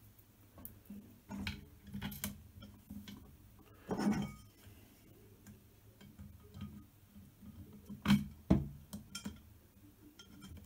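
Small metal hardware being handled by hand while assembling a CNC router frame: light clicks and clinks of screws and washers against the frame parts. A brief scrape comes about four seconds in, and two sharp knocks a little past eight seconds.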